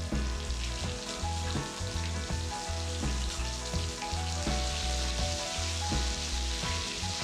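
Ginger and amla paste sizzling in hot mustard oil with whole spices, stirred in the pan. Background music with a steady beat plays over it.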